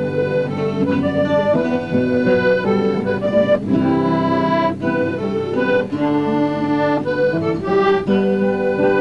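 Background music: an accordion playing a traditional-style tune, a moving melody over held chords.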